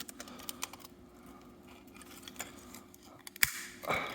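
Plastic sensor housing of an optical smoke detector being cracked open: scattered light clicks, then a sharp snap a little past three seconds in and a short crunching crack near the end.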